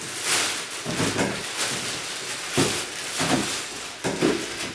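Rustling and handling noises of clothes and bags being packed, with a couple of light knocks.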